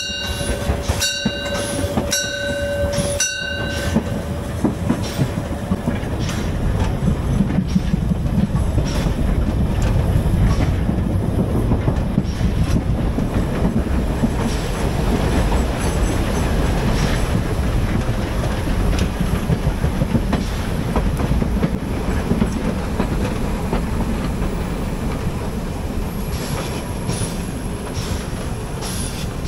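A narrow-gauge steam locomotive's bell rings about once a second for the first few seconds and then stops. The train runs on with a steady rumble and the clickety-clack of wheels over the rail joints.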